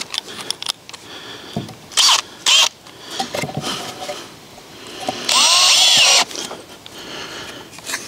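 Cordless drill driving screws into a wooden brace and post: two short squeezes of the trigger about two seconds in, then a longer run of about a second near the six-second mark, its motor whine sweeping up and down in pitch.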